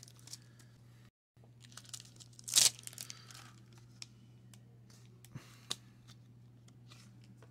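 Foil baseball card pack being torn open and crinkled, with one loud tearing crackle about two and a half seconds in, then light clicks and rustles as the cards are handled.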